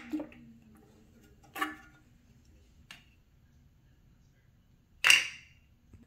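Short sharp plastic clicks and knocks from hands handling the top of a toilet tank's fill valve: one about a second and a half in, a faint one around three seconds, and the loudest about five seconds in.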